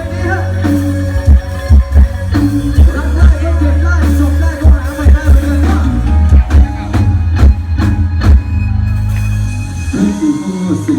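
Loud music played over a Thai rot hae parade sound truck's sound system, with a heavy bass line and sharp, regular drum hits. The bass drops out near the end.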